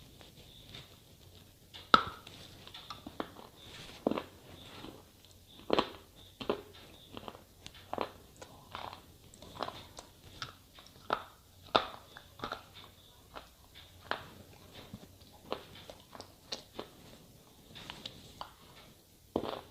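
Slate pencil being bitten and chewed: a run of sharp, irregular crunches, the loudest about two seconds in.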